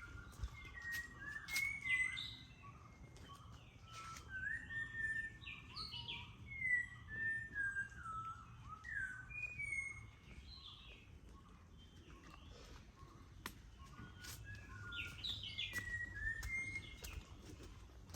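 Birds singing, with quick runs of whistled notes and chirps. There is a lull in the middle, and a few sharp clicks over a steady low rumble.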